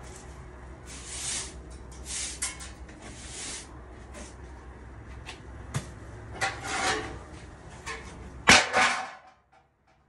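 Irregular scraping and knocking handling noises over a steady low hum, ending with a loud knock about eight and a half seconds in, after which the hum stops.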